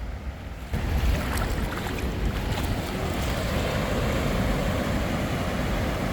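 Wind buffeting the microphone over ocean surf, a steady rushing noise that gets abruptly louder a little under a second in.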